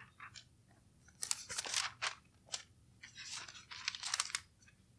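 Bible pages being leafed through: several short, faint rustles of thin paper as the pages are turned.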